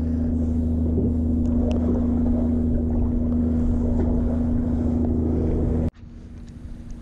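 A steady low machine hum made of several unchanging low tones, like an idling engine, which cuts off abruptly about six seconds in, leaving much quieter background noise.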